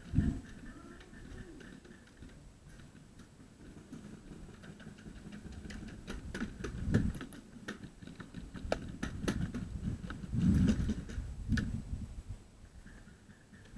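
Scattered light clicks and ticks with a few dull thumps, strongest about halfway through and again near the end.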